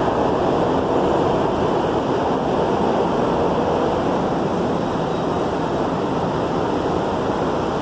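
Steady rushing of air from an underground metro station's ventilation system, an even, unbroken noise.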